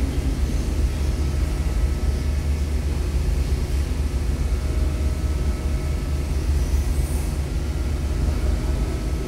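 Steady low rumble of a running vehicle engine, even and unchanging, with a faint steady hum above it.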